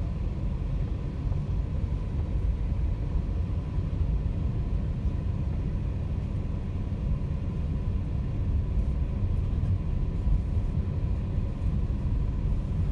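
Steady low rumble of a car driving, heard from inside the cabin: engine and tyre noise, with a faint steady whine above it.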